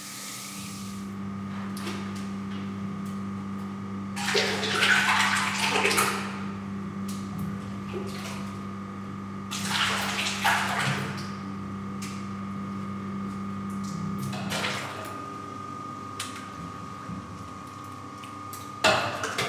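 Water being poured off and sloshing in a stainless-steel yeast vat, in separate bursts about four, ten and fifteen seconds in and again near the end, the first the loudest. A steady mechanical hum runs underneath.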